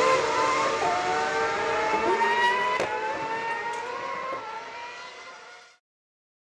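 Formula One car's engine accelerating away from a pit stop, its pitch climbing with a quick drop at each upshift. It fades as it pulls away, then cuts off a little before the end.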